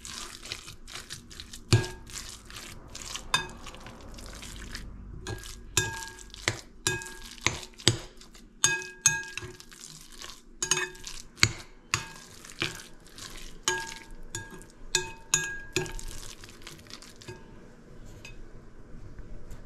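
A metal fork stirring ground-meat lumpia filling in a glass mixing bowl: irregular quick clinks of metal against glass, each with a short ring. The clinks thin out near the end.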